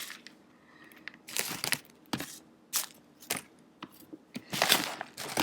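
Packing material crinkling and rustling in irregular bursts as wrapped items are taken out of a shipping box, loudest near the end.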